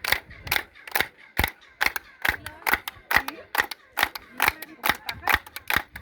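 Hand claps at a steady pace of a little over two a second, each followed by a faint chirping echo off the stepped Pyramid of Kukulcan: the echo likened to a quetzal's call.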